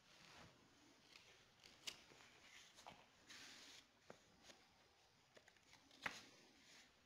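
Near silence: quiet room tone with a few faint clicks and a brief rustle, the clearest clicks about two seconds in and again about six seconds in.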